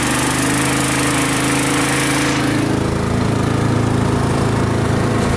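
Taiga karakat all-terrain vehicle's small petrol engine running steadily as the vehicle crawls slowly through snow. About two seconds in the higher hiss falls away and the low engine note comes forward.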